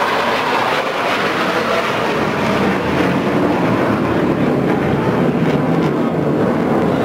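Military fighter jet's engines, a loud steady rushing roar that swells slightly near the end as the jet banks and turns overhead.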